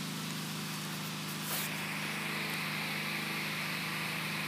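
Steady low hum with a constant hiss over it and a faint click about a second and a half in; no distinct event.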